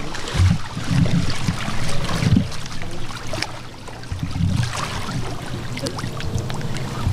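Swimming-pool water sloshing and splashing as two people wade down the steps into waist-deep water, with wind rumbling on the microphone.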